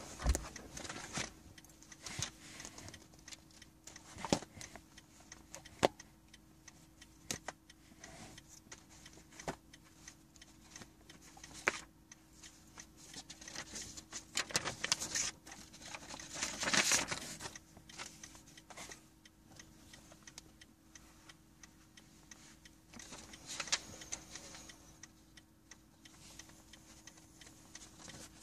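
Scattered clicks and rustling from a recording phone being handled in a parked car's cabin, over a faint steady hum. The clicks come at irregular intervals, and there are louder rustles about halfway through and again near the end.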